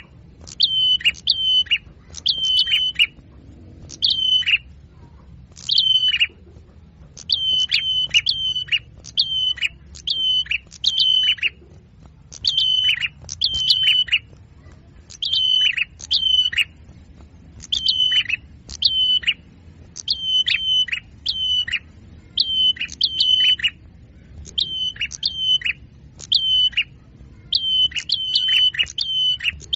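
Small songbird call notes from a bird-luring recording: short, high chirps, each a brief held note that drops off sharply, repeated in clusters of one to three about every second.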